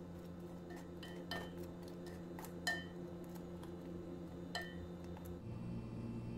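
A spoon stirring thick kadhi in a metal pot, clinking against the pot a few times with short ringing knocks, the loudest about two and a half seconds in. A steady low hum runs underneath.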